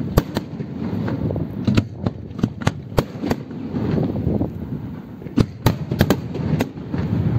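Fireworks exploding: an irregular string of sharp bangs and crackles, coming in clusters, over a continuous low rumble.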